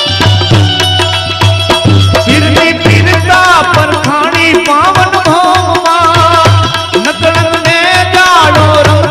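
Instrumental duet of tabla and a banjo-type melody instrument: the tabla keeps up a fast rhythm with deep, booming bass strokes, and about three seconds in a wavering, bending melody line enters over it.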